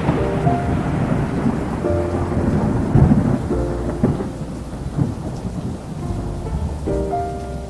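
Thunder rumbling and fading away over steady rain, with soft music chords sounding now and then.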